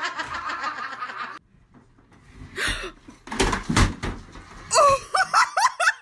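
A person laughing, cut off about a second and a half in, then a short knocking clatter, and near the end a woman laughing in quick bursts.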